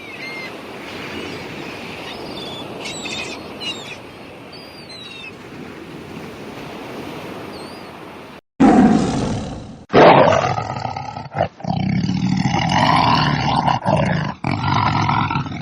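Steady outdoor noise with a few bird chirps. Then, after an abrupt cut about eight and a half seconds in, a lion roars loudly in a run of repeated roars and grunts.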